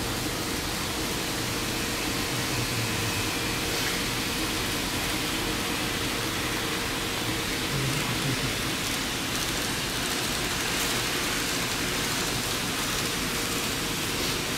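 Model trains running on layout track: a steady rolling hiss from wheels and motors, with no distinct clicks or changes.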